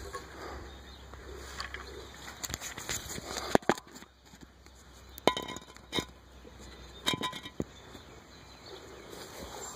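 Scattered sharp metallic clicks and clinks, a few with a short ring, from the 1968 Poulan Model 53 chainsaw being handled and readied for starting; the engine is not running.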